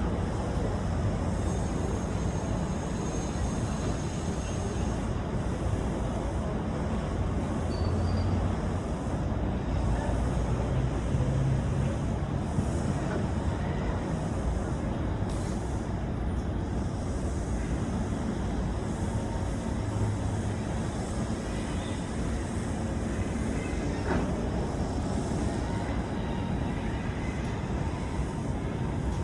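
Motorboat underway at a steady speed: a continuous engine drone under a rushing wash of wind and water.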